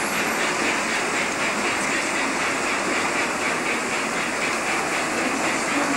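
Steady, even hall background noise: a dense hiss-like din with no single sound standing out.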